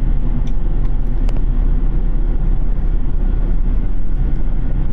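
Steady rumble of a train running at speed, heard from inside the passenger car, with a few light clicks in the first second or so.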